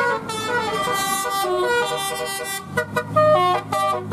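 Indonesian 'telolet' multi-tone bus air horns playing a quick melody, several notes sounding together and stepping to new pitches every fraction of a second. A lower steady tone joins about three seconds in.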